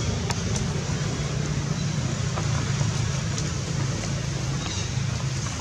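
Steady low rumble and even hiss of background noise, with a few faint, short high-pitched chirps or ticks.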